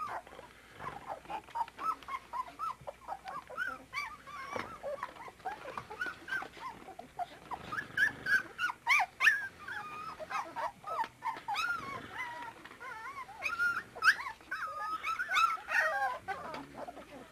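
A litter of 24-day-old puppies whimpering and yelping, many short high-pitched cries overlapping, busiest about halfway through and again near the end.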